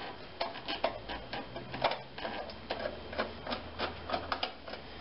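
Hand nut driver turning out the quarter-inch screws of a Tecumseh engine's recoil starter housing: a run of small irregular clicks and scrapes, about three a second.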